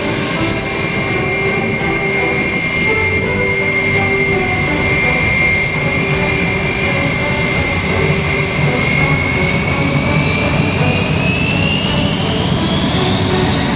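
Airbus A320's jet engines running with a steady high whine over a low rumble. Over the last few seconds the whine rises steadily in pitch as the engines spool up.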